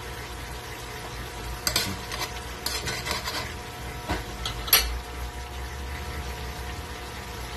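Pork simmering in sauce in a metal wok, a steady bubbling sizzle, while a metal spoon clinks and scrapes against the wok several times between about two and five seconds in, the sharpest strike near five seconds.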